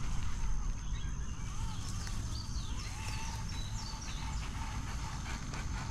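Outdoor trail ambience: a steady low rumble, with small birds chirping in quick short phrases from about one to three and a half seconds in, over a faint steady high-pitched whine.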